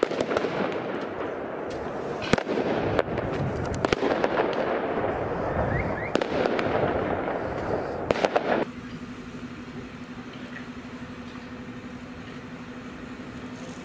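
Firework mortars going off in sharp bangs over a continuous rushing noise, with several bangs in quick succession just after eight seconds. The sound then cuts abruptly to a quieter steady low hum.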